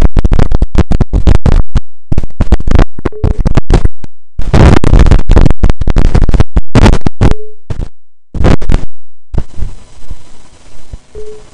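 Harsh, heavily clipped noise stuttering on and off in rapid bursts with short dead gaps, and a brief steady tone three times. Near the end the bursts thin out to faint hiss.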